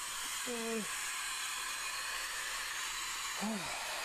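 Steady static hiss, with two short vocal sounds from a person, one about half a second in and one near the end.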